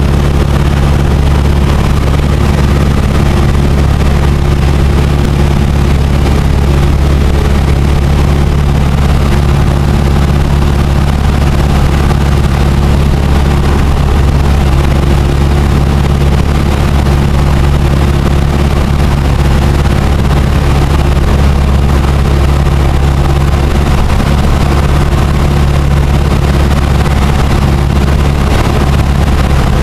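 Cessna 172's single piston engine and propeller droning steadily in flight, heard from inside the cabin, over a steady rush of air noise.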